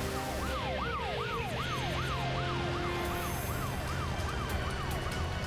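Animated fire-truck siren yelping: a fast rising-and-falling wail, about two and a half sweeps a second, over a low steady drone. It cuts off just before the end.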